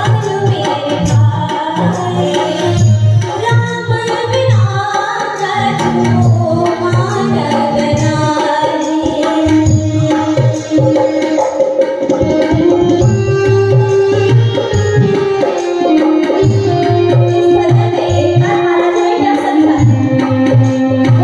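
Devotional bhajan sung by a woman into a microphone, with a dholak beating a steady rhythm and keyboard accompaniment.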